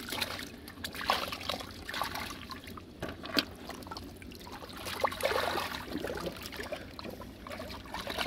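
Hands digging and sloshing through mud in shallow water, with water trickling and an irregular run of small splashes, a few sharper ones among them.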